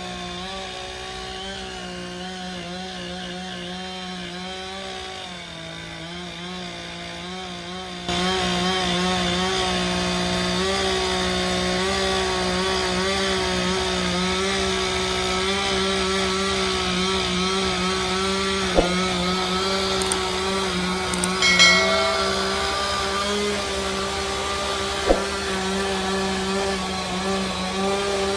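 Two-stroke chainsaw running steadily as it cuts through tree wood, getting louder about eight seconds in. A few short sharp knocks come in the second half.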